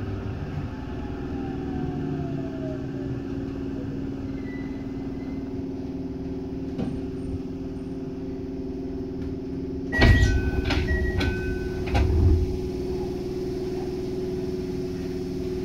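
Running sound of an Eidan 8000 series electric train heard from inside the car: a steady hum with held low tones. About ten seconds in, a sudden loud rumble and clatter comes with short ringing tones alternating between two pitches, and a second loud rumble follows about two seconds later.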